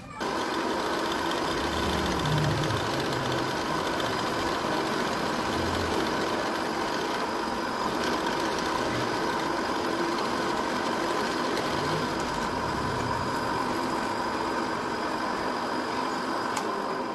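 Bench drill press motor running steadily, its bit cutting into a white plastic block clamped in a cross-slide vise.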